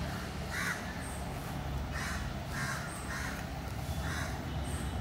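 Crows cawing, about five harsh caws spread across a few seconds, with a few faint short high notes between them and a steady low rumble underneath.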